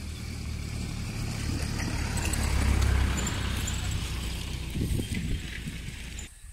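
Wind buffeting the microphone: a steady rumble with hiss, swelling about halfway through and cutting off suddenly near the end.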